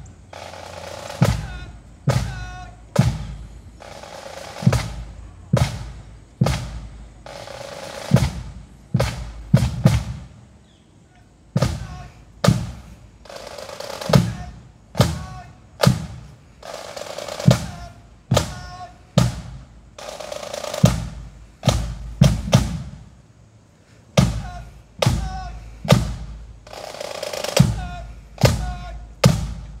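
Marching pipe band's drum section playing a steady processional beat, with a loud drum stroke about once a second.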